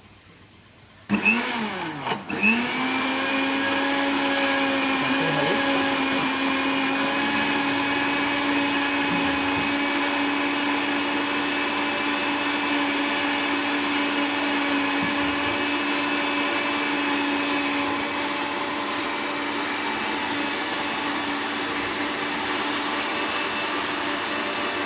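Electric blender grinding leaves and water for a herbal cough remedy: two short pulses whose pitch rises and falls, then the motor running steadily. The blending is done until the mixture is roughly smooth, and the hum eases slightly later on.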